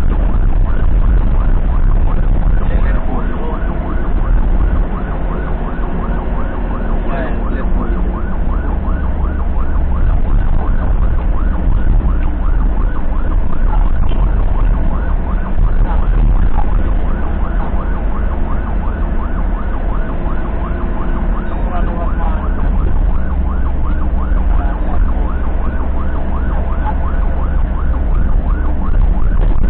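Ambulance siren sounding continuously in a fast, evenly repeating cycle, heard from the vehicle's own cab over a heavy, steady engine and road rumble.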